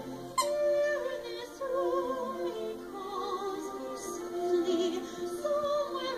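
Background music: operatic singing of long held notes with a wide vibrato.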